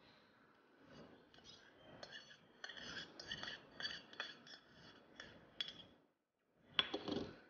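Steel spoon scraping and tapping against small stainless steel bowls: a string of light, ringing clinks, then a brief pause and a louder clatter near the end.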